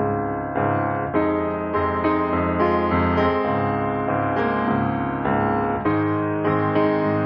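Piano music: notes and chords struck about twice a second, each fading before the next.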